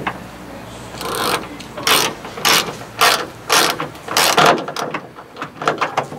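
Hand ratchet wrench being worked in repeated strokes, each a short burst of pawl clicking, about two strokes a second, with a few lighter clicks near the end.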